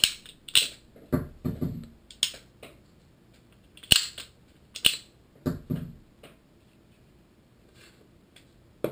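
Rob Allen Vecta 2 speargun trigger mechanism handled in the hands, giving a string of sharp clicks and light knocks, about a dozen over six seconds, and one more click near the end.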